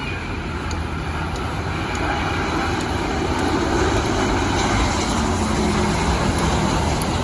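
Jet airliner engines passing close by, a steady rushing noise that grows louder about two seconds in and holds.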